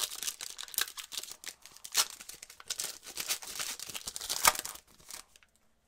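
Shiny trading-card pack wrapper crinkling and tearing as gloved hands rip it open, in quick irregular crackles. Sharper rips come about two seconds in and again near four and a half seconds.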